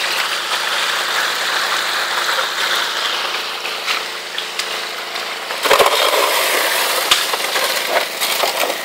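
Highbanker at work: its small engine-driven water pump runs steadily while water rushes down the aluminium sluice. About two-thirds through, a shovelful of creek gravel is dumped into the metal hopper, rocks crunching and clattering against the metal.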